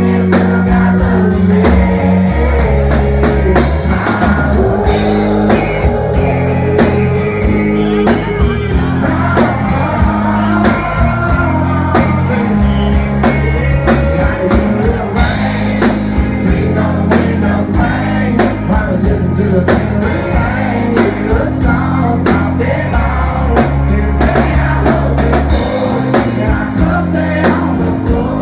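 Live country-rock band playing a song: a male lead singer with acoustic guitar, electric guitar, bass guitar and a drum kit, steady and loud with no break.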